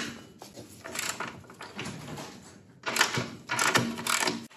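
Metal hand tools working the motorcycle's rear axle hardware, most likely the cotter pin and axle nut: irregular metallic clicks and short scrapes, the sharpest clinks about three and four seconds in.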